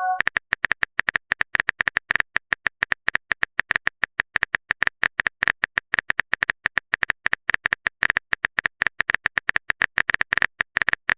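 Rapid phone-keyboard typing sound effect: a steady run of short sharp clicks, roughly ten a second, as a text message is typed out.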